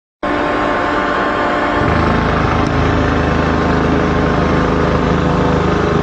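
Heavy diesel engine of construction machinery running steadily. A deeper low rumble comes in about two seconds in.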